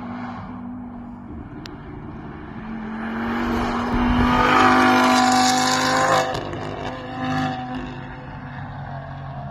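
Audi RS3 race car's engine at full throttle as the car passes, its note rising and growing louder to a peak a little past halfway, then dropping suddenly and running on more quietly as it pulls away.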